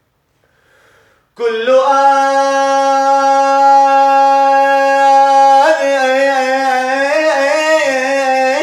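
A man singing an Arabic Sufi devotional chant (dhikr inshad). He comes in about a second and a half in on one long held note, the word "kull", then about two seconds before the end turns to ornamented melismatic runs.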